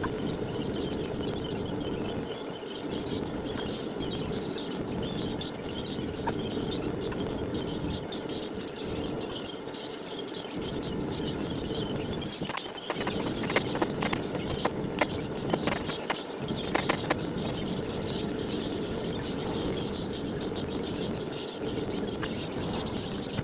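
Home-built furnace burners running with a steady roar, and a run of sharp clicks about halfway through.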